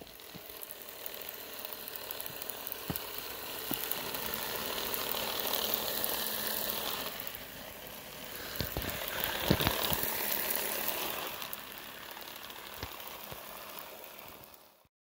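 Small battery-powered electric motor of a 3D-printed G scale sweeper car running, its rotary brush whirring and flinging light powder snow off the track. The brush is driven by a rubber band on smooth gears. The noise swells and eases, with a few clicks along the way.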